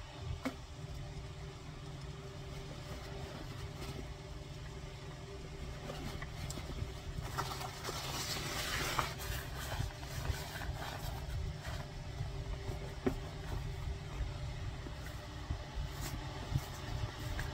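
A steady low rumble throughout, with fabric rustling about halfway through as trousers are pulled down over rubber boots, and a few light clicks.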